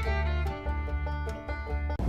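Country/bluegrass-style instrumental music with fiddle and banjo.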